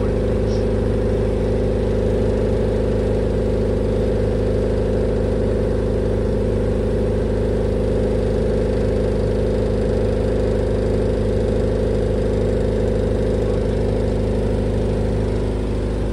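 Doosan 30 kVA diesel generator set running steadily at no load, its engine drone holding an even pitch and level.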